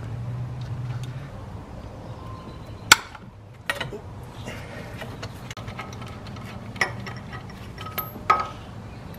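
Hand tools and metal engine parts clinking and knocking together in a few sharp, separate taps, the loudest about three seconds in, some with a short metallic ring. This is the work of unbolting the timing belt tensioner on a Subaru 2.5L engine.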